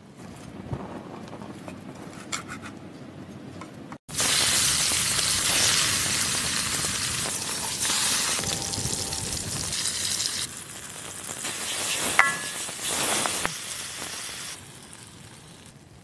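Food sizzling loudly as it fries in a wide black pan over an open wood fire, with one sharp metallic clink about twelve seconds in. The first few seconds hold only faint handling sounds.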